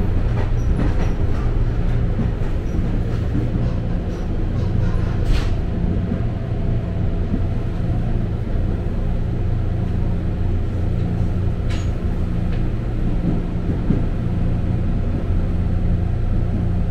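A KRL Commuterline electric commuter train running, heard from inside the passenger car: a steady low rumble with motor hum. Two short sharp clicks come about five and twelve seconds in.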